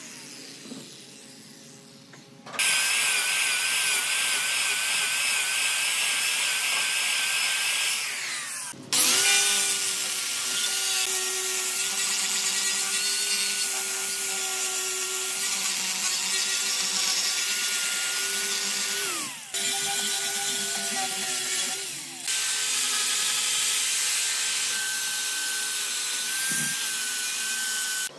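Angle grinder fitted with a sanding drum sanding the rim of a wooden vase: a steady high motor whine with a rasping noise. It starts about two and a half seconds in, wavers in pitch at first, and breaks off briefly three times.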